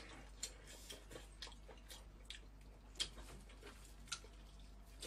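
Faint, wet mouth sounds of a person eating spicy marinated seafood: chewing and lip smacks heard as scattered short clicks, the sharpest about three seconds in.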